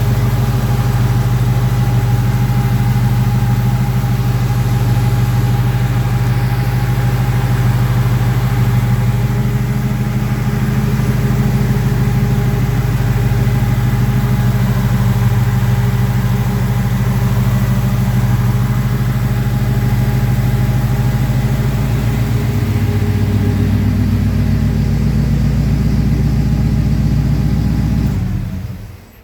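1984 Oldsmobile Delta 88's engine idling steadily. It stops near the end.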